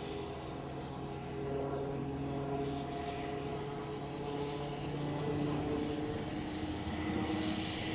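X-49A compound helicopter (a winged SH-60F Seahawk with a ducted pusher propeller in place of the tail rotor) flying a high-speed pass, its rotor, engines and ducted propeller making a steady droning hum with several tones. It grows gradually louder as it comes closer.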